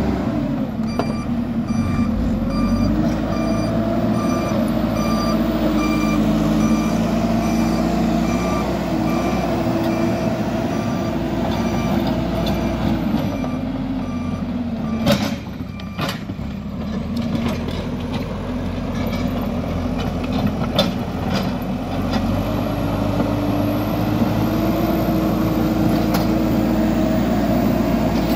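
JCB 3CX backhoe loader's diesel engine running and revving as the machine moves, with its reversing alarm beeping about twice a second for the first dozen seconds. Two sharp knocks come about halfway through.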